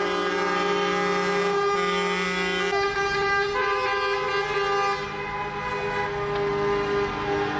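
Truck horns sounding in long, overlapping blasts, held almost without a break and changing pitch a couple of times: protest honking by trucks during a truck strike.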